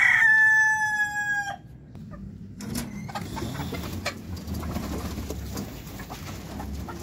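A rooster crowing, the long final note held for about a second and a half and sagging slightly in pitch. Then quieter scuffling, rustling and scattered clucks as the chickens are let out of their pen.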